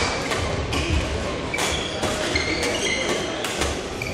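Badminton rackets striking the shuttlecock in a rally, several sharp cracks, with court shoes squeaking briefly and repeatedly on the hall floor.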